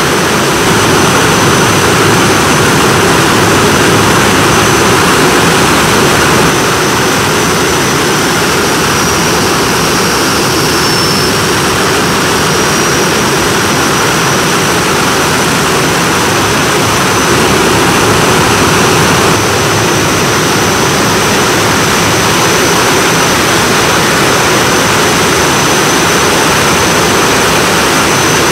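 Jet engine running steadily at idle: a loud, continuous rush of exhaust noise with a steady high-pitched whine that wavers briefly about eleven seconds in.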